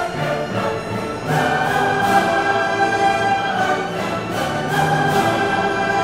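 Orchestral background music with long held chords.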